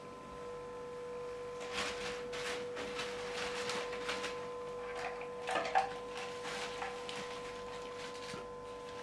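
Shoes and bags being handled on the floor: irregular rustling and clattering, with one louder knock a little past the middle. A steady hum runs underneath.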